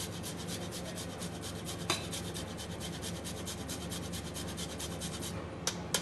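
Handheld rasp grater scraping food over a plate in fast, even strokes, about eight a second. The strokes stop about five seconds in, followed by a couple of light clicks.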